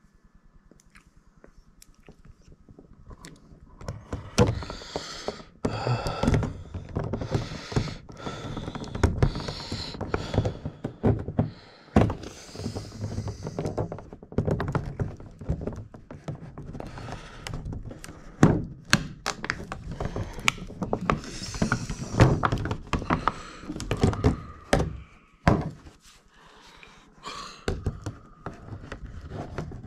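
Toy packaging being handled: a run of irregular knocks, clicks and crinkling as pieces are worked free of their plastic tray and retaining straps, starting about three seconds in.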